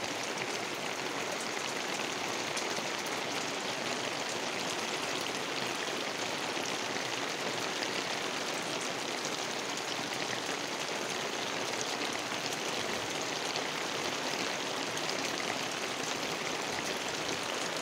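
Heavy rain falling steadily: a dense, even hiss of rain with fine ticks of individual drops striking close by.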